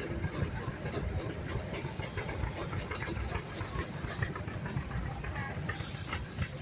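Steam engines running at an outdoor show: a steady low rumble with a hiss of steam and a few scattered light ticks.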